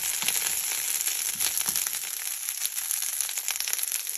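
Broadleaf plantain shoots and leaves sizzling and popping in a hot nonstick frying pan, with a wooden spoon knocking through them a few times in the first two seconds.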